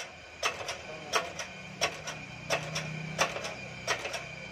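Shop press working an axle out of its bearing: sharp metallic clicks at an even beat, about one every 0.7 seconds, some of them doubled. A low hum swells and fades in the middle.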